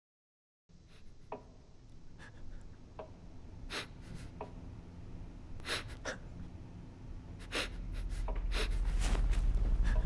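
Scattered soft clicks, rustles and short breaths over a low hum. The hum grows steadily louder through the second half.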